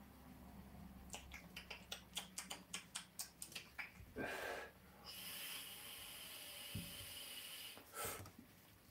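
Someone vaping on an e-cigarette: a run of small clicks and crackles, a short breath just after four seconds, then about three seconds of steady hiss and a breath out near the end.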